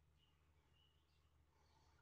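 Near silence: a faint low hum, with a few faint, short high chirps.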